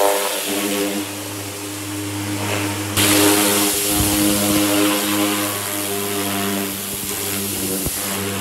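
Pressure washer running with a steady motor hum under the hiss of its high-pressure water jet striking sheet-metal car body panels, blasting off paint softened in an alkaline stripping bath. The spray hiss jumps sharply louder about three seconds in.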